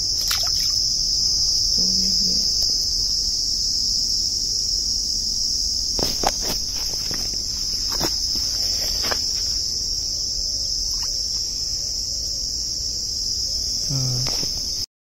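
A steady, high-pitched chorus of insects chirring, with a few sharp clicks near the middle. The sound cuts off suddenly near the end.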